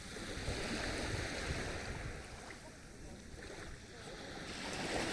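Sea waves washing on the shore, the wash swelling and easing and building again near the end, with wind rumbling on the microphone.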